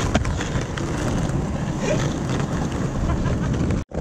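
Skateboard wheels rolling on concrete and the board grinding along a curb, with a sharp clack just after the start. Wind buffets the microphone.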